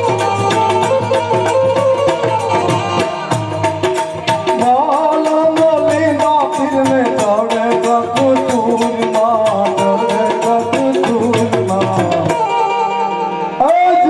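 Indian folk music on harmonium and keyboard, with a melody over fast hand-drum strokes. Near the end the drumming drops out for about a second, then the music comes back in louder.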